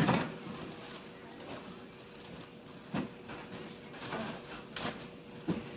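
Frozen food packages being handled and set on wire freezer shelves: a sharp knock at the start, then a few lighter knocks and plastic rustles. A faint steady hum runs underneath.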